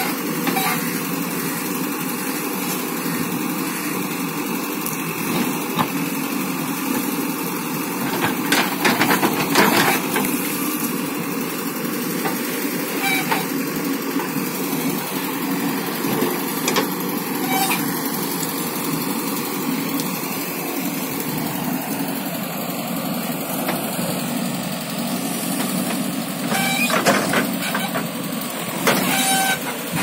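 JCB 3DX backhoe loader's diesel engine running steadily while the backhoe arm and bucket work the ground, with a few short knocks and clanks, clustered about a third of the way in and again near the end.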